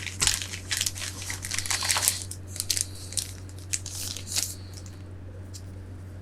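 Plastic packaging being handled during a keyboard unboxing: dense crinkling for about two seconds, then scattered sharper crackles that die down to a few faint ticks in the last second or two.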